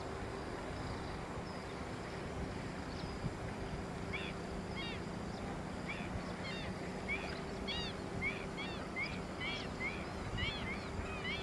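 Outdoor lakeside ambience with a steady low hum. From about four seconds in, a small bird gives short, arching chirps that come faster, about three a second by the end.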